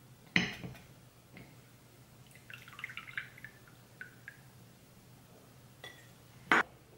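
A stainless-steel mesh tea infuser clinks against a glass mug as it is lifted out. For a couple of seconds steeped tea drips from it back into the mug in a run of small, quick drips. Near the end the infuser is set down on a plate with a sharp clink, the loudest sound.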